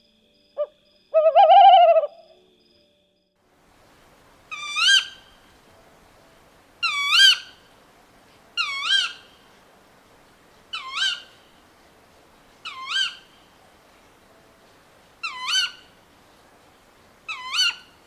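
Tawny owl calling: one loud drawn-out arched note a little over a second in, then a sharp two-part call repeated seven times, about every two seconds.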